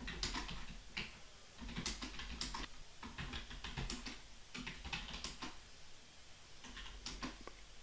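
Typing on a computer keyboard: an irregular run of faint key clicks with short pauses.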